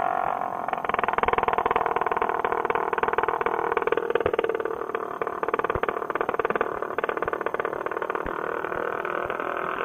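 Paramotor engine running through the landing approach, its note dropping about half a second in and holding steady at reduced power.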